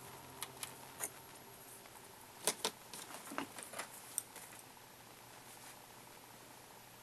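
Small metal tools and parts being handled at a jeweler's bench: a scatter of short, light metallic clicks and clinks, most of them in the first four seconds.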